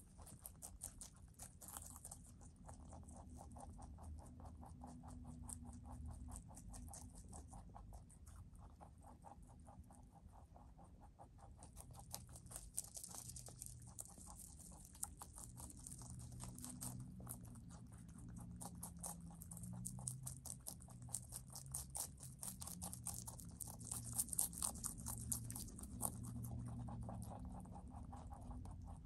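Two rabbits chewing leafy greens (lettuce, collard greens and parsley): a rapid, steady run of small crunches, growing busier and louder from about halfway.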